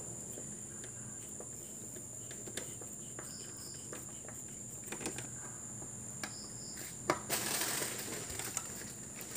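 Screwdriver driving in the screws of an inverter air-conditioner board's IPM module: scattered small clicks and a short scraping rattle about seven seconds in, over a steady high-pitched whine.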